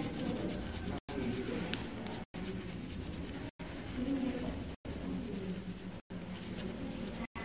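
Colored pencil rubbing and scratching on paper as a drawing is colored in. The sound cuts out briefly about every second and a quarter.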